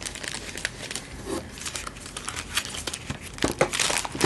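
Hands-on disassembly of a CO2 BB pistol: many light, irregular clicks and small scrapes of metal parts being handled and worked loose, with some rustling, and a quick run of louder clicks near the end.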